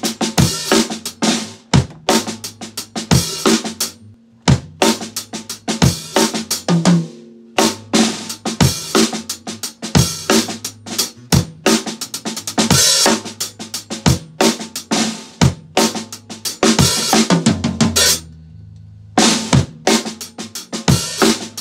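Acoustic drum kit played: bass drum, snare with rimshots, toms and cymbals in fast grooves and fills, breaking off briefly about four seconds in and again a few seconds before the end, where a low drum rings on.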